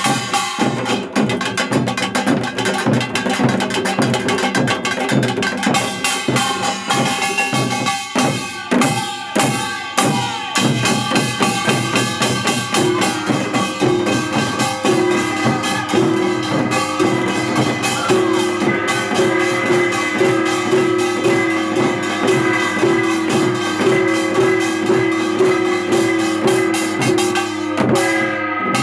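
Music with a steady drum beat; a short repeating melodic figure comes in about halfway through.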